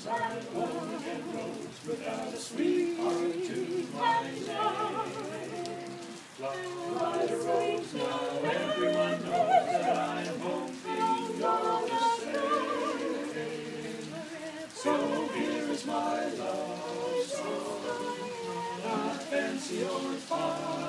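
Men's barbershop quartet singing a cappella in close four-part harmony, several voices holding chords together. Rain patters on the tent canopy underneath.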